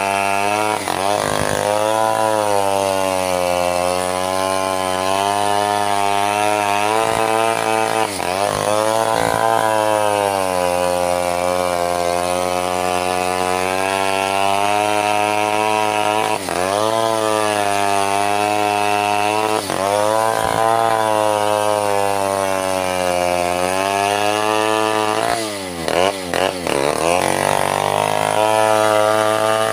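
Two-stroke Stihl chainsaw running near full throttle while cutting a mahogany log. The engine pitch sags under load several times and recovers, and near the end the revs drop briefly before climbing again.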